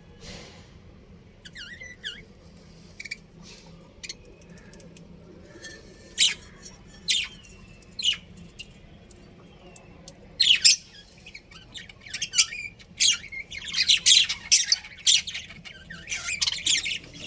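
A colony of budgerigars chirping and squawking in short, sharp high calls, scattered at first, then coming thick and fast over the last several seconds.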